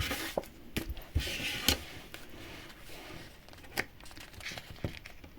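Hands handling small paper and plastic craft pieces: short papery rustles and a few sharp light taps and clicks.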